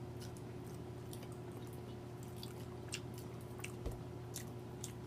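Close-up chewing and mouth smacking: soft, wet clicks at irregular intervals over a faint steady hum, with one low thump about four seconds in.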